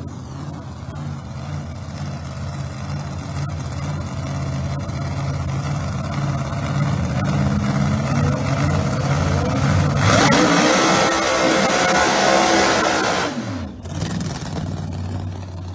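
A Ford Mustang drag car's engine runs at low revs on the starting line and climbs slightly. About ten seconds in it launches at full throttle, loud, and passes close by, its pitch falling as it pulls away.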